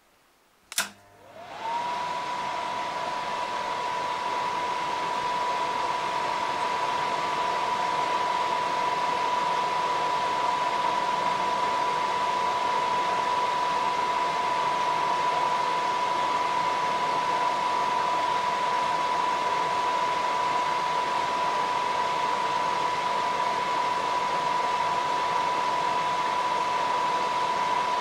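Rank Aldis Tutor 2 effects projector switched on with a click, its cooling fan spinning up over about a second to a steady whine with a rush of air.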